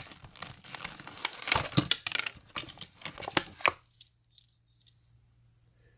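Crinkling and crackling of a die-cast toy car's plastic blister pack and card being handled, for about the first three and a half seconds; it then cuts off abruptly, leaving only a faint low hum.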